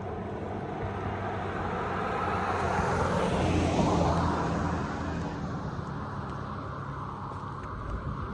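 A car passing by on the street, its engine and tyre noise swelling to loudest about four seconds in and then fading away.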